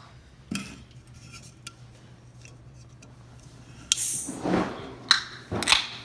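Clinks and knocks of containers and dishes being handled on a table: a few light clicks, then a louder scrape or rustle about four seconds in, and two sharp knocks near the end.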